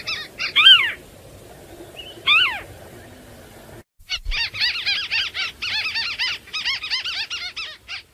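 White-browed crake calling: a rapid chattering series of arched notes, then two louder calls that slide downward in pitch. After a brief gap about four seconds in, another long, rapid chattering series starts and stops just before the end.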